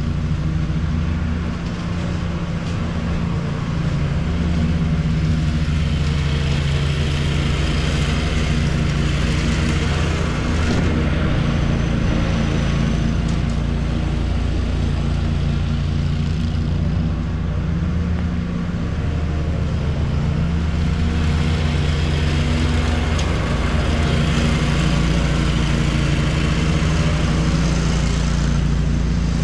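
Engine of a Walker riding lawn mower running steadily while mowing, with small shifts in pitch as it works.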